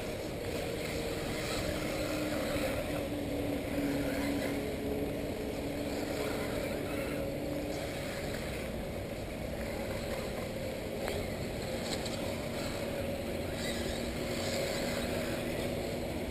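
Electric 1/8-scale RC buggies racing, heard from trackside: thin motor whines that slide up and down in pitch over a steady outdoor hiss.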